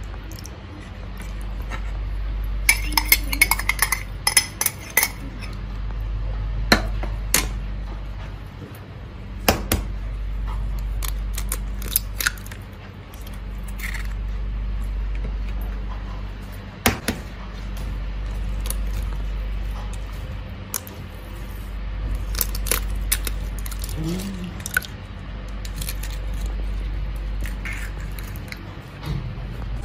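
Kitchen utensils clinking and tapping against bowls and dishes in scattered sharp strikes, with a quick run of clinks about three to five seconds in. A low hum swells and fades every four seconds or so underneath.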